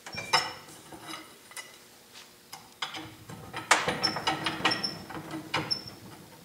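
Metal clinks and scrapes of a steel adjustable wrench being handled and refitted on a hex nut held in a bench vise, with several short ringing clanks. The loudest clank comes near the start, and a louder cluster follows about three and a half seconds in.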